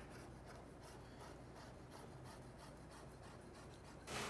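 Faint rubbing and handling noise, then near the end a short hiss as an aluminium drink can is opened.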